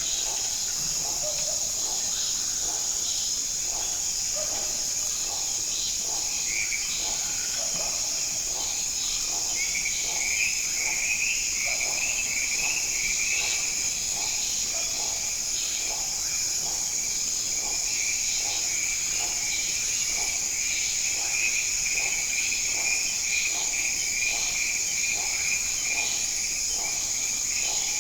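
Rainforest chorus of insects and frogs: a steady high insect drone throughout, a warbling trill chorus that joins about six seconds in and grows stronger a few seconds later, and short lower calls repeating throughout.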